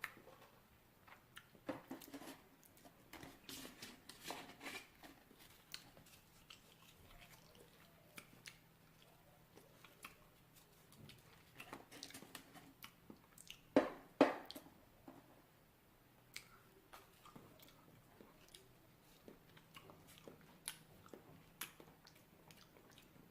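Faint scattered clicks, taps and crackles close to the microphone in a small room, over a faint low hum, with louder clusters a few seconds in and around the middle.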